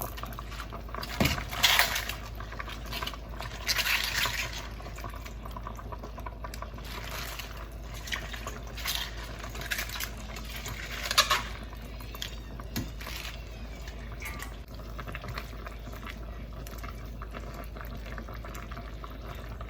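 A pot of soup bubbling at the boil, with a few short clinks and splashes of a utensil against the pot a few times along the way, over a constant low hum.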